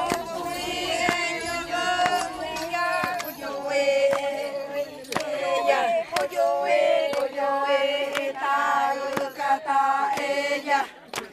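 A group of voices singing together in long held notes, with sharp clicks scattered through; the singing breaks off near the end.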